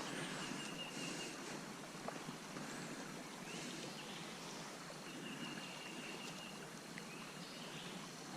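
Steady rush of flowing river water, with birds calling over it several times in high whistled notes.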